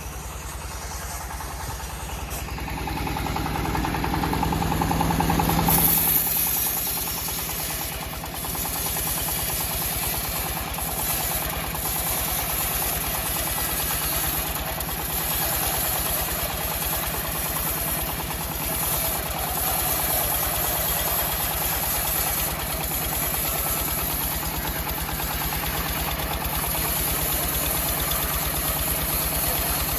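Engine of a homemade bandsaw sawmill running steadily with an even low pulse. It is louder for a few seconds near the start, then settles about six seconds in.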